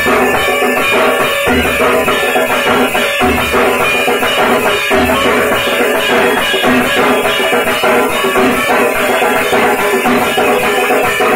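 Two dhaks, the large double-headed barrel drums of Bengal, beaten steadily with sticks in the arati rhythm of Durga Puja, with a hand-held bell-metal gong (kansar) clanging along.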